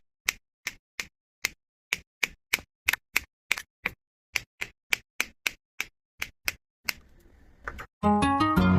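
A steady series of sharp clicks, about three a second, like mechanical keys, stopping about seven seconds in; soft music with plucked notes starts about a second later.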